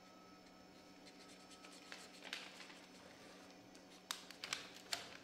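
Faint scratching of a pen drawing on a paper cup, followed by a few light clicks and taps about four to five seconds in.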